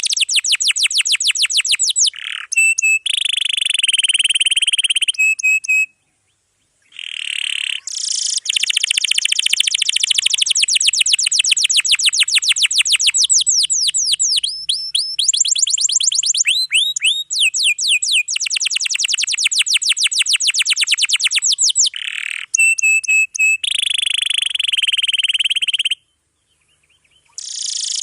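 Domestic canary singing long, fast rolling trills of rapid repeated high notes, with short changes of phrase and two brief pauses.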